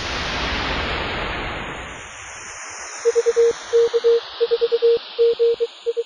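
A swell of static-like hiss that rises and then fades, followed from about three seconds in by a single steady-pitched Morse code tone keyed in short and long beeps (dots and dashes).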